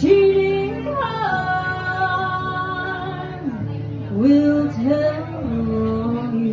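A woman singing live while strumming an acoustic guitar, with long held notes that swoop up and down in pitch about halfway through.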